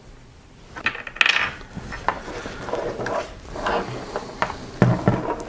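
A run of small metal clicks and knocks as the Ruger American Predator rifle and its parts are handled, the loudest click coming just after a second in.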